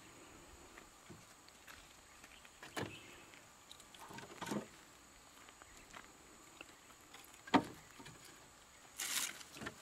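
A few scattered soft knocks, the sharpest about three-quarters of the way through, and a short rustle near the end, from a man moving about by a pile of dry cut sticks.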